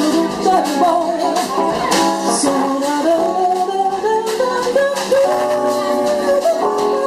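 Live jazz combo playing an instrumental passage of a bossa nova arrangement: a single melodic lead line moving and gliding from note to note over drums, double bass and keyboards.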